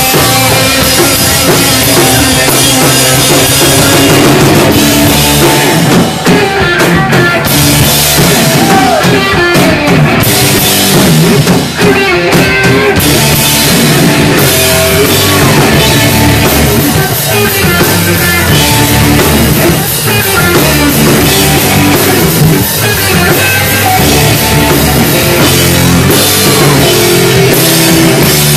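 Rock band playing live: electric guitars and a drum kit, loud and dense, with two short breaks about six and twelve seconds in.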